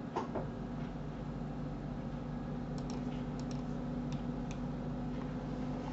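A few faint, separate clicks of a computer keyboard and mouse being used, over a steady low hum.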